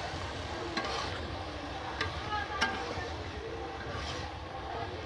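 Onion stalks being stirred and mixed into a sizzling masala in a kadhai with a spatula: a steady frying sizzle with a few sharp knocks of the spatula against the pan.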